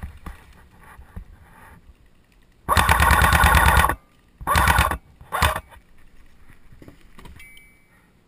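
JG AKS-74u airsoft electric gun firing full-auto, its gearbox cycling rapidly: one burst of a little over a second, then a shorter burst, then a brief one.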